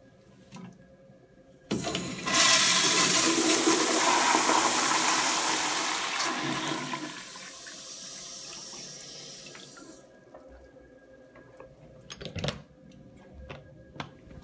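Vintage American Standard Madera toilet flushing: a sudden loud rush of water about two seconds in that holds strong for several seconds, then tapers off and dies away about ten seconds in. A couple of sharp knocks follow near the end.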